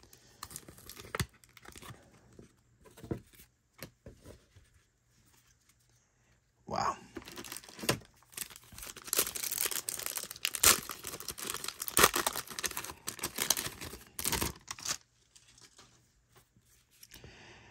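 A baseball card pack being torn open by hand, its wrapper crackling and crinkling in a run of quick rips for about eight seconds. Before that, only a few faint clicks of cards being handled.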